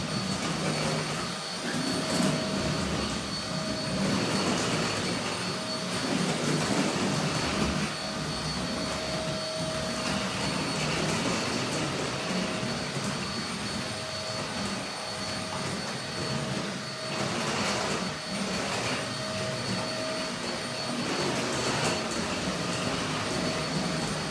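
WOWGO cordless stick vacuum running: a steady motor whine over a rushing airflow that swells and dips as the cleaner head is moved about.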